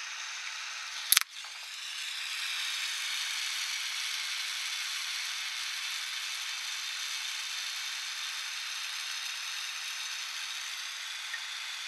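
Gas torch flame hissing steadily. About a second in, a single sharp, loud pop as the molten gold in the crucible blows out, which the owner puts down to a badly adjusted torch mixture and the tip held too close to the gold. After the pop the freely burning torch hisses a little louder.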